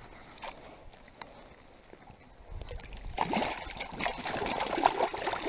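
Low water lapping at first. Then, about two and a half seconds in, irregular splashing and sloshing begin and grow louder as a landing net is dipped into the lake and a brook trout thrashes in the net.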